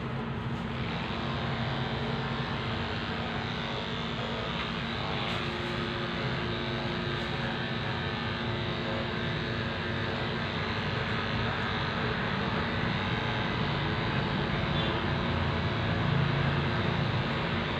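Corded electric grooming clippers running with a steady buzz while shaving a small dog's head fur, a little louder near the end.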